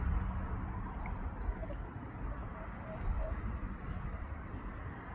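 The low hum of a large Buddhist temple bell fades out a second or so in, over a steady low rumble of background noise. Faint whooper swan calls come through now and then.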